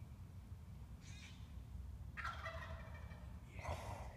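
Wild turkey gobbler gobbling: a rattling call a little under a second long about two seconds in, then a second, shorter burst near the end.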